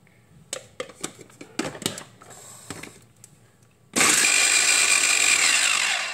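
Moulinex Multi Moulinette electric mini chopper grinding spice-paste ingredients (onion, candlenut, ginger, turmeric, garlic). Plastic clicks and knocks as the motor unit is fitted onto the bowl, then about two seconds of loud motor running with a high whine that drops in pitch as it is released and winds down.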